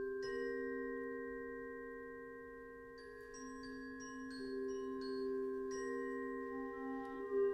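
Concert band mallet percussion playing a slow, sparse melody of struck bell-like notes, each ringing on over long sustained tones. A few more notes layer in near the end.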